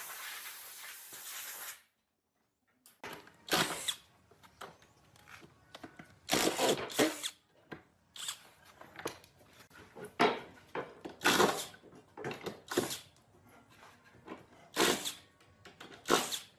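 Woodworking tool noise: a steady hiss that cuts off abruptly, then after a short pause a series of irregular short bursts of scraping and grinding, tool against wood.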